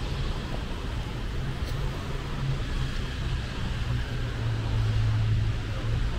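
Steady low rumble of street traffic, swelling slightly about four and a half seconds in.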